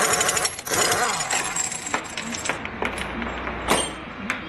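Metal tools and parts clanking and clinking together in a sudden clatter with a bright ring that dies away after about two and a half seconds. A few separate sharp clinks follow.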